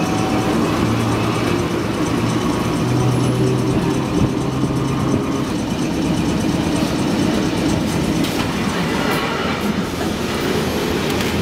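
Historic streetcar running along its track, heard from inside the wooden car: a steady rumble of wheels on rail with a low hum that drops away about halfway through, and a few clicks later on.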